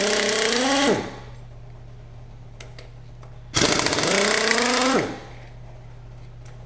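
A handheld air tool runs in two bursts, one ending about a second in and another of about a second and a half in the middle. Each burst whines up in pitch as the tool spins up and drops as it stops. A steady low hum runs underneath.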